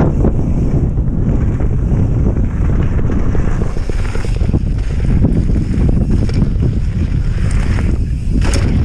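Heavy wind buffeting on the microphone of a body-mounted camera on a mountain bike riding fast down a gravel trail, over the tyres' rumble on the gravel. A few sharp clicks near the end.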